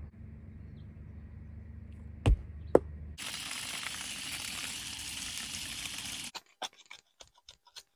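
Two sharp knocks of rocks being set against each other over a low steady rumble. About three seconds in, this gives way to a garden hose stream splashing into a muddy hole, a steady hiss that cuts off suddenly about three seconds later, followed by a few scattered clicks.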